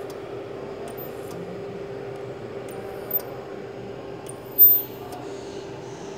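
Handheld ultrasonic plastic welder with its horn pressed into a plastic reservoir: a steady hum with short high-pitched squeals. A brief squeal comes a little past halfway, and a louder one follows about a second and a half later.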